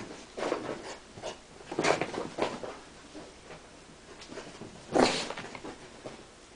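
Small terrier puppy making short bursts of dog noise while it plays, clustered over the first three seconds, with the loudest burst about five seconds in.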